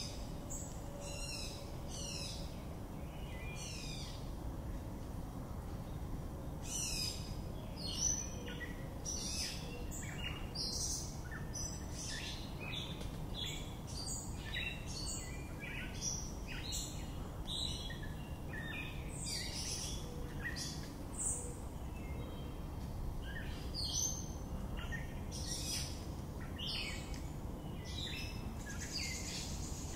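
Songbird singing a long, jumbled run of short, varied chirps and squeaky whistled notes, several a second with brief gaps, over a steady low background rumble.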